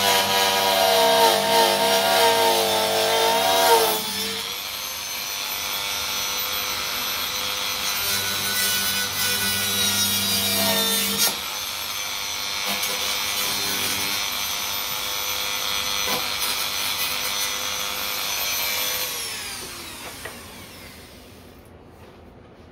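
Dremel rotary tool with a cutting disc cutting through the acrylic canopy of a Van's RV-8, a high-pitched whine. Its pitch wavers under load in the first few seconds, then holds steadier, and the tool winds down to a stop near the end.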